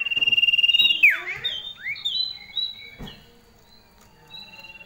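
Female common iora calling: a loud, fast trill held on one high pitch for about a second, then a few quick down-slurred notes and short high whistles. A quieter trill starts again near the end.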